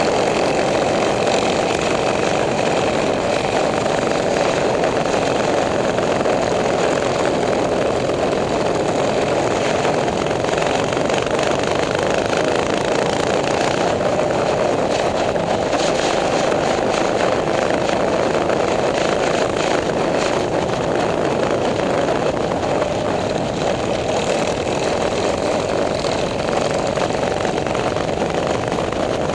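Minibike engines, small four-stroke single-cylinders, running steadily at cruising speed, with wind and road noise from riding mixed in.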